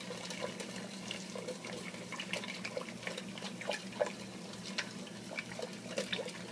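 Thick roux-thickened coconut-milk bisque bubbling at a boil in a large pot, with irregular wet pops and plops, as a wooden spoon stirs it.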